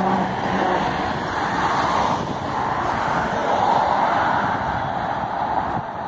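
Road traffic on a city bridge: a trolleybus passes close, then cars go by, a rush of tyre and engine noise that swells twice.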